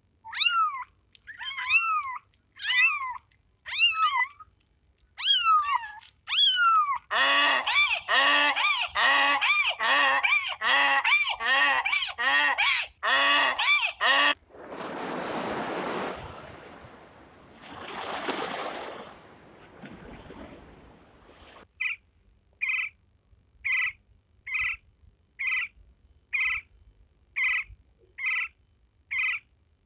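Animal calls in a string of short clips: about seven pitched calls that fall in pitch, then a quick run of about nine calls, two hissing noises, and ten short high calls at an even pace near the end.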